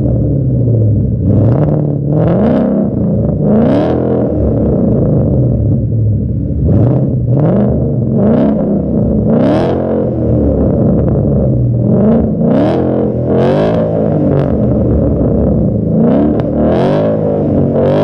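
Ford Mustang 5.0-litre V8 revved repeatedly through a true dual cat-back exhaust. There are about a dozen quick rises and falls in pitch, and the higher revs climb past 6,000 rpm.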